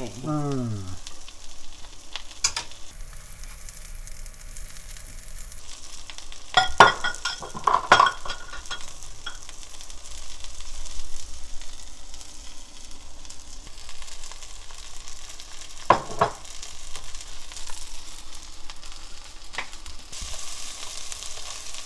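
Egg-battered pollock fillets sizzling as they pan-fry in oil, with a few sharp knocks and clinks now and then, the loudest about seven to eight seconds in.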